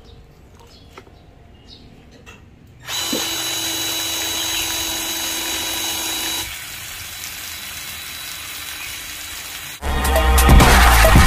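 A cordless drill spins a homemade PVC-pipe water pump with a steady whine. It starts about three seconds in and drops to a lower level about halfway through. Electronic music with a heavy beat cuts in near the end.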